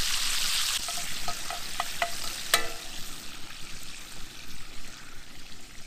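Bacon sizzling in cast iron skillets over a campfire, a steady hiss that is stronger for the first second. A few short metallic clinks ring out between about one and two and a half seconds in, the last one the loudest.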